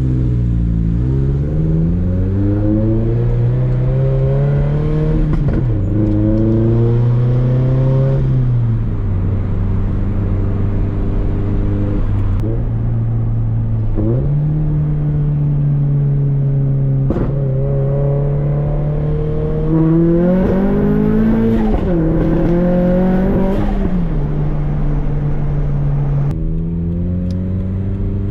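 Turbocharged Scion FR-S flat-four running through a straight-through Tomei 80R catback exhaust, pulling up through the gears: the pitch climbs, drops at each shift, holds steady while cruising, then rises and falls again near the end. A couple of sharp pops sound between pulls.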